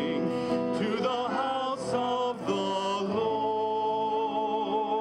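Hymn singing with musical accompaniment, held chords from a sung processional refrain. From about three seconds in, a long note is held with a wavering vibrato.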